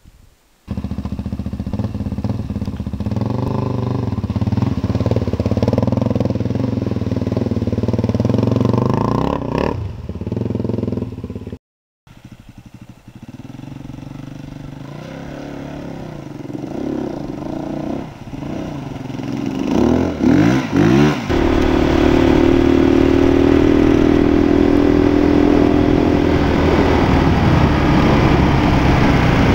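Single-cylinder four-stroke dirt bike engine running, with a couple of rising revs. The sound cuts out briefly about twelve seconds in, comes back quieter, then swells near twenty seconds into a loud, steady engine note as the bike rides along.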